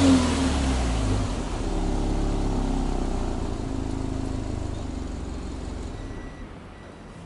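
Exhaust note of a Subaru Impreza WRX STI hatchback's turbocharged boxer flat-four, the revs falling away right at the start after a throttle blip and easing down toward idle. The engine sound grows quieter throughout, fading markedly about six seconds in.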